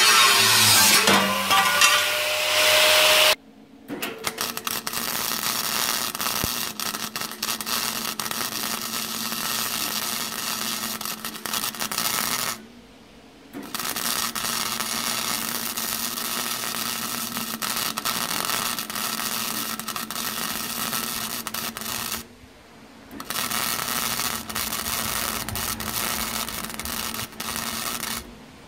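Angle grinder cutting the steel side of a bathtub, its pitch dipping and then rising. Then arc welding on the steel: a continuous crackling sizzle in three long runs of several seconds each, with brief pauses between, over a steady low hum.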